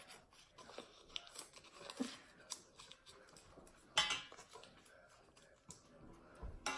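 Faint crinkling and small clicks of a paper slip being folded by hand, with one sharper tap about four seconds in.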